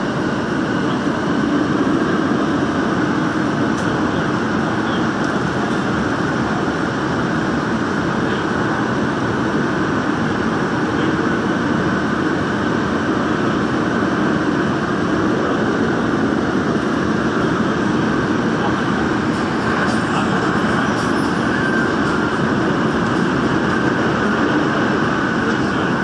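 Daejeon Metro Line 1 subway train running at speed through a tunnel: a steady noise of wheels on rail and rushing air, with a few faint clicks near the end.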